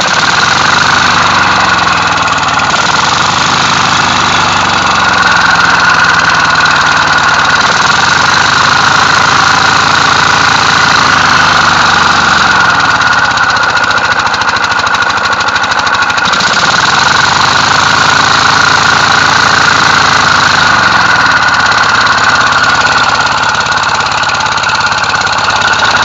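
A 5 hp Briggs & Stratton single-cylinder engine, converted to a recompression engine running on compressed air, running steadily with fast exhaust puffs and a loud hiss. Its speed rises and falls slightly.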